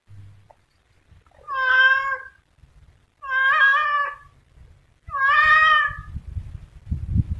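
Tabby cat meowing three times, each a drawn-out call of under a second, with a low rumble near the end.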